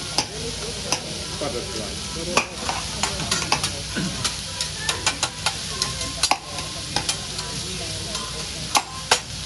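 Vegetables sizzling on a hibachi teppanyaki griddle as metal spatulas scrape and clack against the steel plate while stir-frying. A steady sizzle runs under frequent sharp clicks, with two loud clacks near the end.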